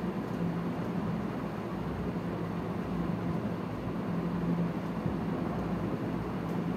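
Steady background noise with a low hum and no distinct events.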